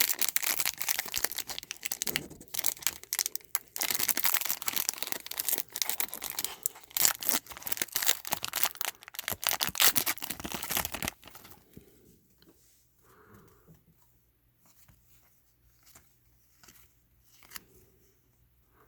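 Wrapper of a trading-card pack being torn open and crinkled, a dense crackle for about the first eleven seconds. After that it turns much quieter: light handling of cards with a few faint soft clicks.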